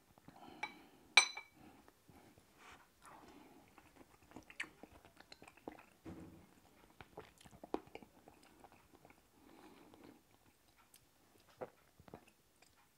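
A ceramic soup spoon clinks once against a soup bowl about a second in. Quiet mouth sounds of sipping and chewing chicken and sweetcorn soup follow, scattered with small clicks.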